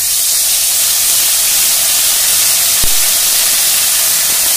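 Hot oil in a kadai sizzling loudly as wet ground spice paste is poured into it, a steady hiss with a single light knock about three seconds in.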